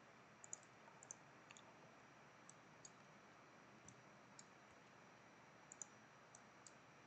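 Near silence with about a dozen faint, irregular clicks of a computer mouse, a few coming in quick pairs like double-clicks.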